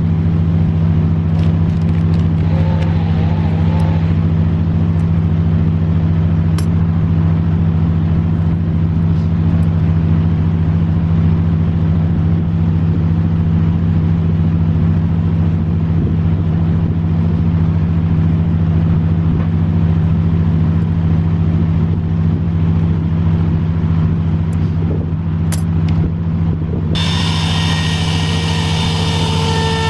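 A steady low mechanical drone, like an engine or motor running. Near the end a power tool starts with a high whine.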